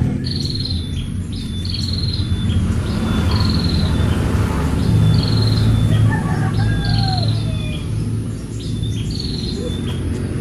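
A bird calling over and over, a short high falling call repeated about every second and a half, over a steady thin high-pitched drone and low background rumble.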